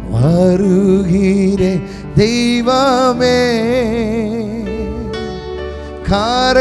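A man sings a slow worship song into a handheld microphone, holding long notes with a wavering vibrato, in phrases that break about two seconds in and again near the end, with instrumental backing underneath.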